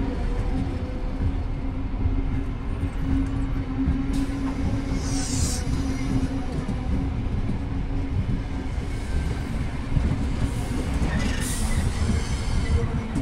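A train running close by: a steady low rumble with a steady hum. Brief high screeches come twice, about five and eleven seconds in.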